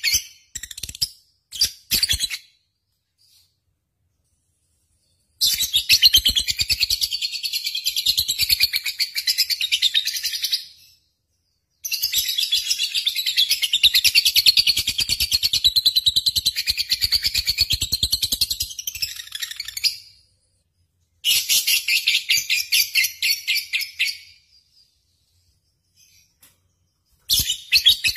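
Lovebird singing: long runs of rapid, high-pitched chattering trills lasting several seconds each, the longest about eight seconds, separated by gaps of complete silence, with a few short bursts near the start and end.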